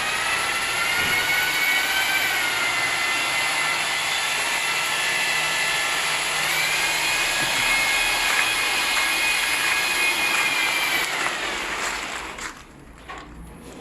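A loud, high-pitched mechanical whine over a hiss, stepping up in pitch twice, then winding down and stopping near the end. A few faint knocks follow.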